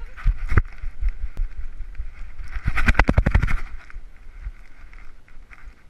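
A harness-mounted GoPro jostling on a running dog: uneven thumps and rubbing from the mount and strap, with a burst of fast rattling lasting about a second, about halfway through.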